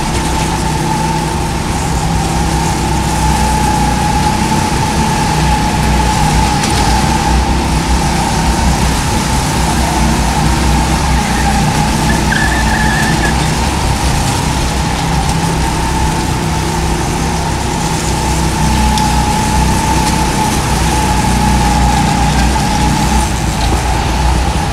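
Go-kart running at speed around a track, heard from on board: a steady motor hum with one high steady tone and a low rumble of wind and track noise.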